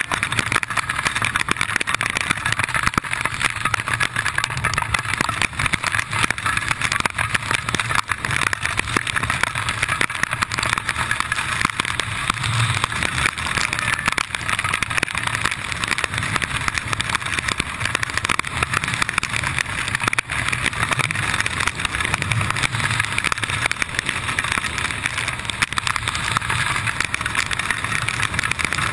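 Wingsuit freefall wind rushing steadily over the body-worn GoPro's microphone.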